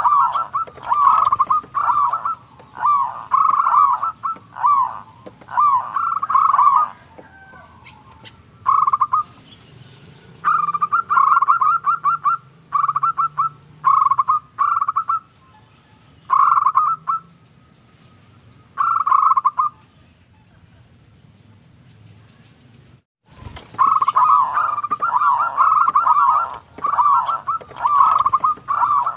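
Zebra dove (perkutut) cooing: short bursts of rapid, rolling coo phrases repeated about every second. The cooing stops for a few seconds near the end, then starts again.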